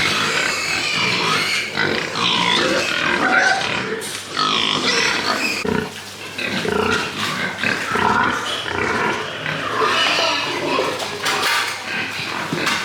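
Pigs squealing and grunting, many calls overlapping with no break.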